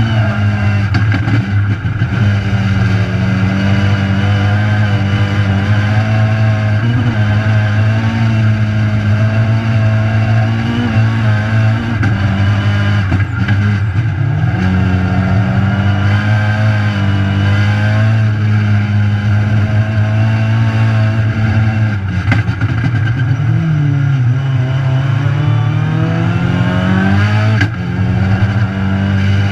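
Rallycross car engine heard from inside the stripped, caged cabin while it is driven hard on track, loud and steady under load. Its pitch dips briefly a few times and, near the end, falls away and climbs back up as the car slows for a corner and accelerates out.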